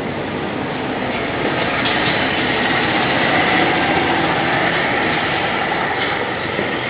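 Distant fireworks barrage: many bursts run together into one dense, continuous noise, growing louder about two seconds in.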